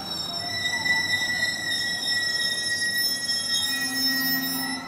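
JR Central 211 series electric train braking to a halt at a platform, its brakes squealing in several high steady tones. The squeal cuts off suddenly near the end as the train stops.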